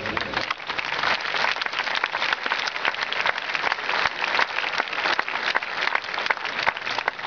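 Large crowd applauding steadily: a dense patter of many hands clapping.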